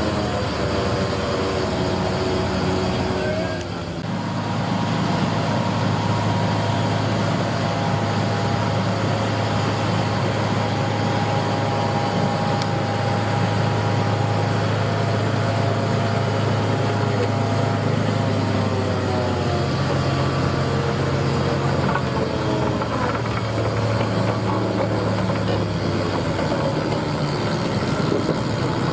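Small diesel railway locomotive's engine running steadily, its note shifting briefly near the start and again about two-thirds of the way through.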